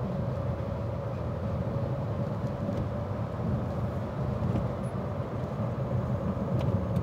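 Silence S04 electric microcar driving: a steady low rumble of road and tyre noise, with a faint steady whine above it that dips slightly near the end.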